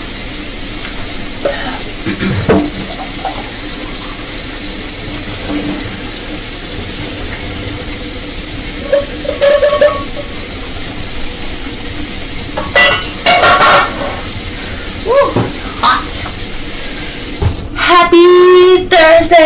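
A steady, loud hiss while coffee is being made, broken by a few short pitched sounds. A woman's voice comes in near the end.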